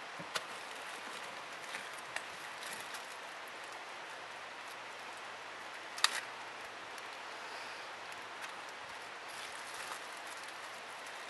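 A plastic bag being crinkled and handled during a car search, with scattered small clicks and rustles and one sharper crinkle about six seconds in, over a steady outdoor hiss.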